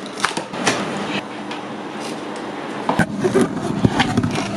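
Cardboard appliance box being opened by hand: tucked flap tabs pulled out and flaps lifted, with scraping and rustling of cardboard and a sharp snap about three seconds in.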